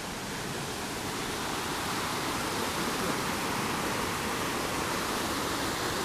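Steady rush of a waterfall cascade tumbling over rocks into a pool, growing a little louder over the first couple of seconds as it draws closer.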